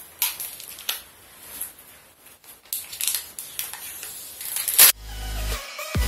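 Crinkly rustling and scattered clicks as a smartphone is handled and unwrapped, with a sharp click about five seconds in. Background music with a heavy bass starts right after it.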